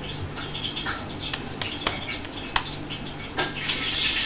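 Wet hands patting and pressing raw beef mince mixture into a flat kabab patty, making scattered soft slaps and clicks. A steady hiss comes in near the end.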